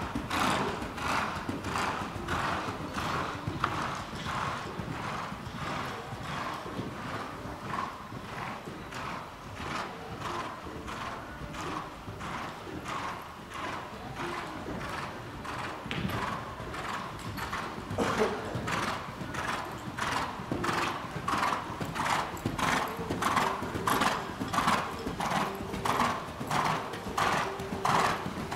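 A ridden horse moving in an even rhythm on sand footing: its hoofbeats and breathing come about twice a second, steady throughout.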